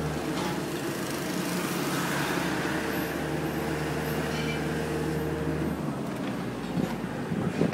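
An engine running steadily, a low hum under a noisy wash, its lowest tone dropping away about six seconds in.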